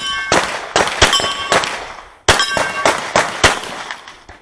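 Pistol fired in a quick string of about seven shots at steel targets, the steel ringing with a bell-like clang after several of the hits.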